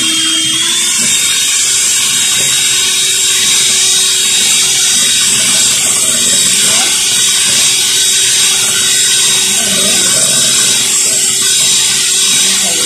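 Electric hand mixer running steadily, its beaters churning runny batter. The motor's whine steps up slightly in pitch about half a second in, then holds steady.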